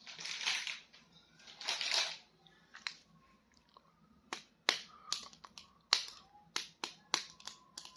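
Handling of plastic toys and packaging: two short bursts of rustling, then a run of sharp clicks, irregular, about two or three a second.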